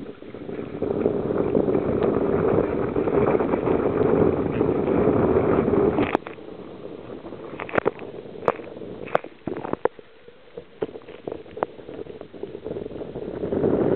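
Sea water rushing around a kayak for about six seconds, then cutting off suddenly. A few sharp splashes or knocks follow.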